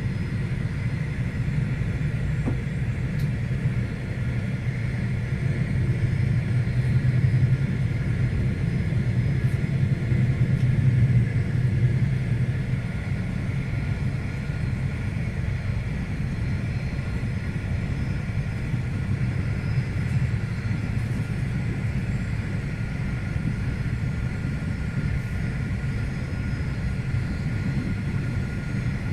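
Steady rumble of a V/Line locomotive-hauled passenger train running at speed, heard from on board, with faint steady whining tones above it. It swells louder for several seconds in the first half, then settles.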